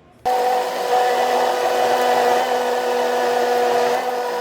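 A small electric motor switches on abruptly and runs loud and steady, a high whir over a rushing hiss.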